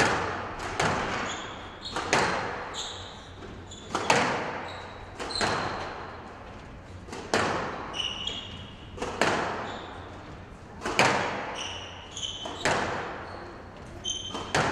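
Squash ball struck back and forth by rackets and bouncing off the court walls in a rally: sharp echoing hits about every second, with short high squeaks of shoes on the court floor between them.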